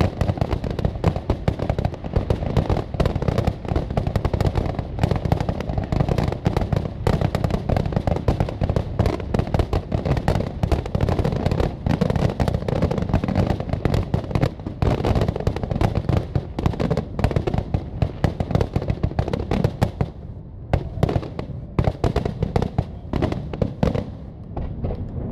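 Fireworks finale: aerial shells bursting in a rapid, unbroken barrage of bangs, thinning out over the last few seconds.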